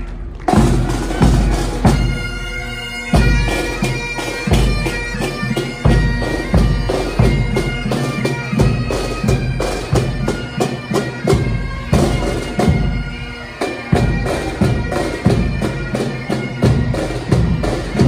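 Marching pipe band playing: bagpipes sounding a tune over their steady drones, with snare and bass drums beating in time.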